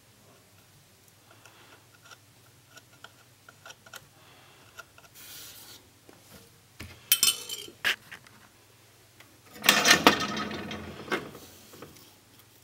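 Small metal hand tools scraping and ticking against a circuit board, then clinking and clattering on the workbench as they are handled and put down, loudest about ten seconds in.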